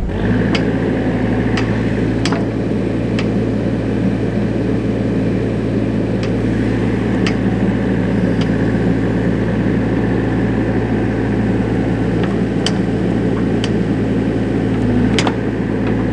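Bobcat E63 compact excavator's diesel engine running steadily under hydraulic load as the boom is angled, with a thin high whine over the engine note. Sharp clicks and knocks come at scattered moments.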